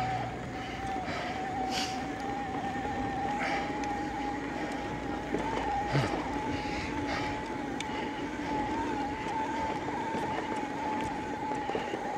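Electric mountain bike's motor whining steadily under pedalling, over the noise of tyres rolling on a dirt trail. There are a few knocks and rattles from the bike, the loudest about six seconds in.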